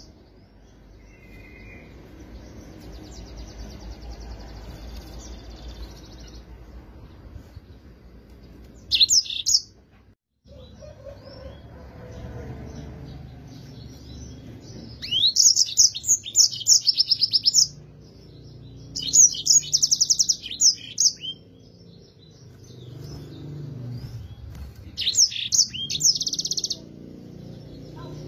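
Yellow-fronted canary (Mozambique canary) singing in short bursts of fast, high twittering and trills. There are four loud bursts, the longest two about two seconds each, plus a fainter buzzy trill a few seconds in, over a low background hum.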